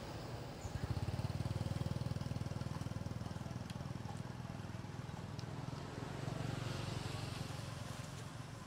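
A small engine running steadily, growing louder about a second in.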